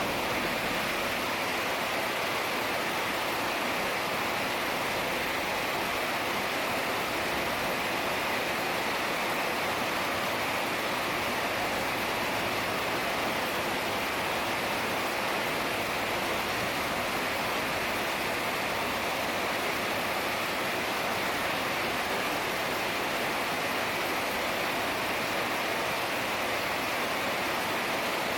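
Heavy rain falling, a steady even hiss with no breaks or changes.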